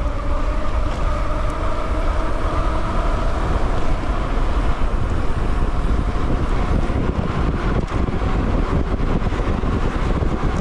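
Wind rushing over the bike-mounted camera's microphone, with a steady hum from knobby mountain-bike tyres rolling fast on tarmac.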